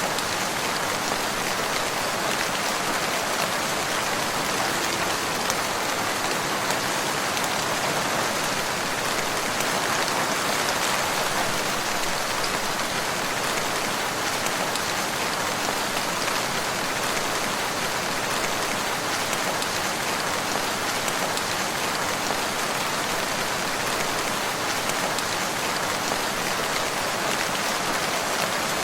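Steady rain falling and pattering on surfaces, an even, dense hiss with fine scattered drop ticks.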